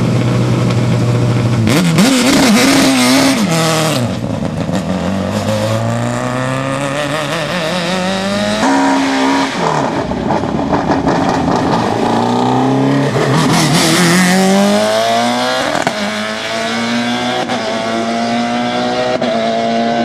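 Super Touring race cars' high-revving engines: revs held low, then blipped sharply up and down with crackles, then accelerating hard through the gears, each upshift a pitch that drops and climbs again. Several cars in turn, one after another.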